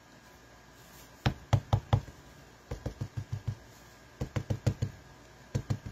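An ink pad dabbed onto a clear stamp mounted on an acrylic block, re-inking it: groups of quick, light taps, about four in the first run, then runs of about six with short pauses between.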